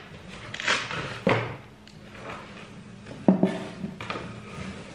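Plastic bags and cardboard packaging rustling as they are handled, with a few sharp knocks and thuds: one near the start, another about a second in, and another past three seconds.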